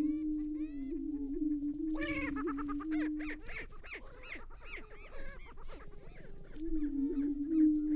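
Greater prairie-chicken lek: males booming in a low, steady hoot, over which many short cackling calls rise and fall. A loud squawk comes about two seconds in. The booming drops out about halfway through and starts again near the end.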